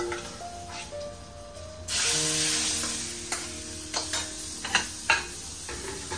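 Mustard seeds and dried red chilies sizzling in hot oil for a curry tempering. A sudden loud sizzle starts about two seconds in and slowly dies down, followed by scattered sharp pops, over soft background music.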